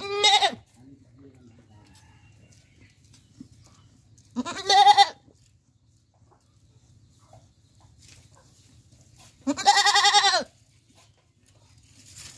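Goat bleating three times, a few seconds apart, each call a wavering bleat, the last one the longest at about a second.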